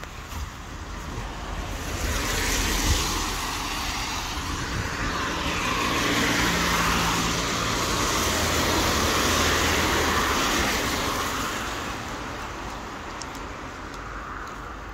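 Cars passing on a wet road, their tyres hissing on the wet surface. The sound swells about two seconds in, builds to a longer, louder pass from about six to eleven seconds, then fades.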